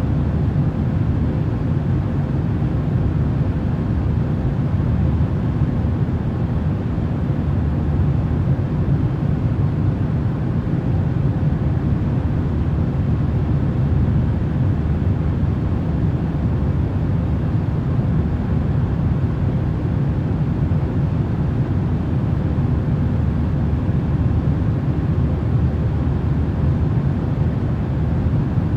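Steady, deep rumbling white noise, unchanging, with most of its weight in the bass.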